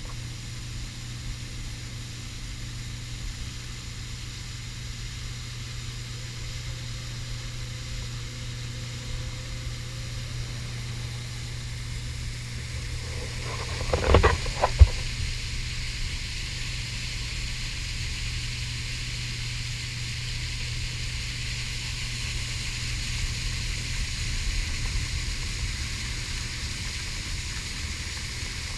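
Outboard motor of a small aluminium boat running at speed, a steady low drone under rushing wind and water hiss. A few sharp knocks come about halfway through, and the hiss grows a little louder after them.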